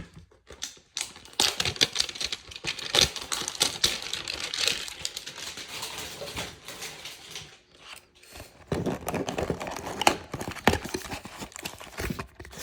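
Trading card hanger box and foil packs being handled and opened: rapid crinkling, tearing and clicking of wrapper and cardboard, with a short lull about eight seconds in.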